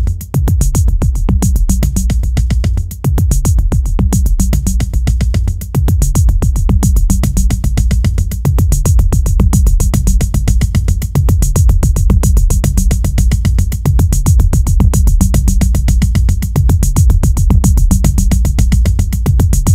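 Electronic music soundtrack with a fast, steady drum-machine beat and a heavy bass line.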